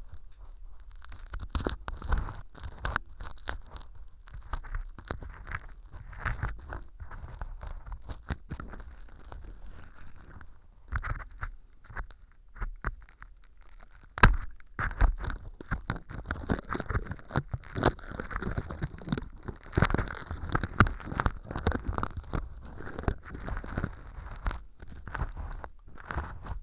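Stainless-steel earpick scraping and digging through mock earwax of styrofoam powder and sawdust inside a clear tube: a continuous, irregular run of crunches, crackles and small pops, with one sharp click about fourteen seconds in.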